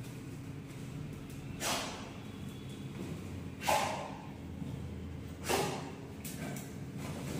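Labrador sniffing at a backpack and a suitcase: three short breathy huffs about two seconds apart, over a low steady hum.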